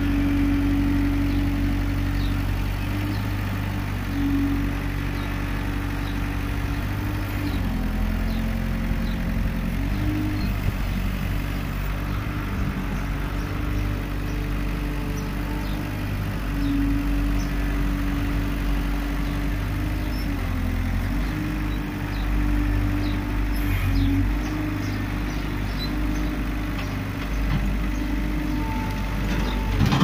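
Case SR150 skid steer loader's diesel engine running steadily, its note shifting a few times as the joystick controls are worked.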